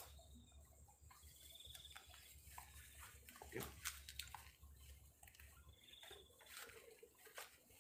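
Near silence: a faint, high insect trill recurs every few seconds, with scattered soft clicks and crackles in between.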